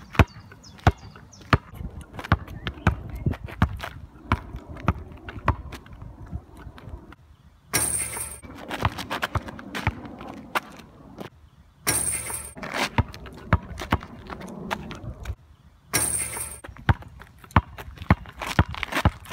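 A basketball bouncing on an asphalt court, giving sharp knocks at uneven intervals, with footsteps and some voices now and then.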